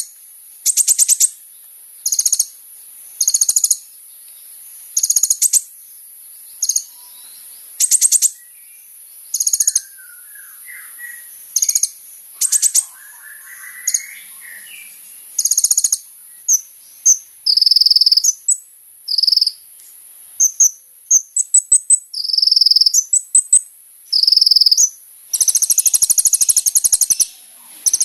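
Kolibri ninja sunbird singing: short, high, buzzy trills repeated every second or two, then coming faster and running together into a dense stretch of song near the end, over a steady high hiss.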